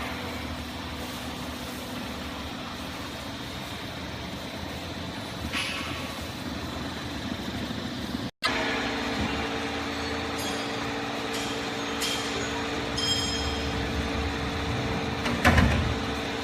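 Hydraulic cardboard baling press running: a steady mechanical hum with a constant tone. It drops out sharply about eight seconds in, then resumes at a slightly different pitch, with a louder hissing clatter near the end.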